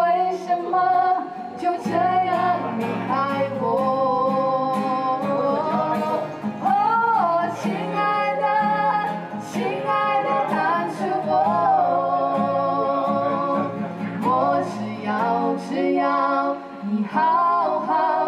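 A woman singing a slow melody to a strummed acoustic guitar.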